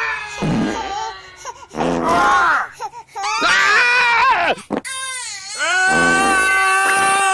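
A baby crying: several short wailing cries that bend up and down in pitch, then one long wail held at a steady pitch from about the middle to the end.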